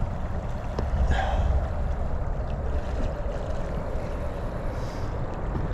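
Steady outdoor wash of wind rumbling on the microphone over flowing river water, with a faint brief higher-pitched sound about a second in.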